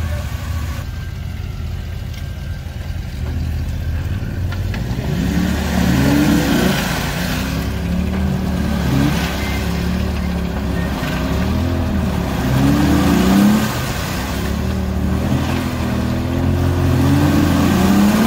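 Off-road vehicle's engine running steadily at first, then from about five seconds in revving up and down repeatedly, the pitch rising and falling every couple of seconds.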